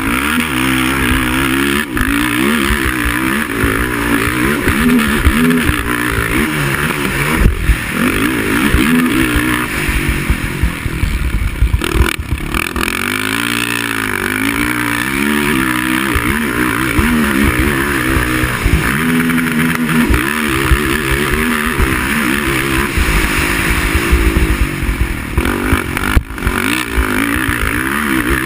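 Racing quad (ATV) engine revving under race load, its pitch rising and falling again and again as the throttle opens and closes, over a steady rushing noise.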